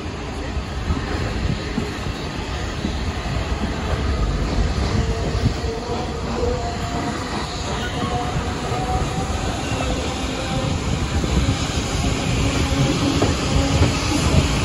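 Passenger train carriage rolling on the rails: a steady rumble of wheels on track, with faint squealing tones from the wheels, growing somewhat louder toward the end.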